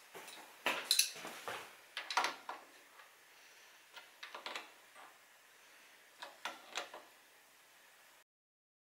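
Light metallic clinks and clicks from a hand tool working at a moped's rear sprocket and axle nut, coming in small groups of two or three every second or two.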